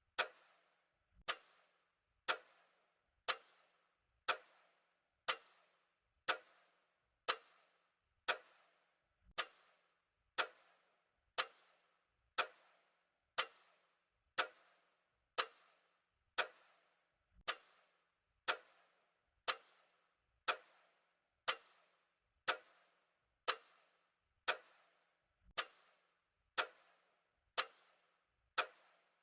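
Clock ticking steadily about once a second, each tick a sharp click with a short ringing tail.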